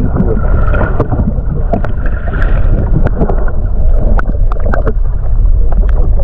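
Small fishing boat on the water: a steady low rumble with wind on the microphone, and many short knocks and clicks scattered through it.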